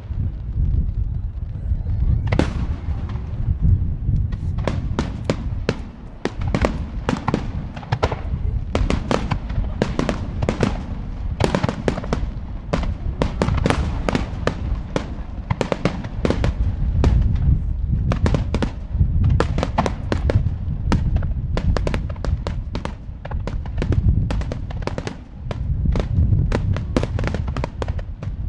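Extra-large star mine fireworks barrage: aerial shells launching and bursting in rapid succession, several sharp bangs a second over a continuous low rumble, with two brief lulls.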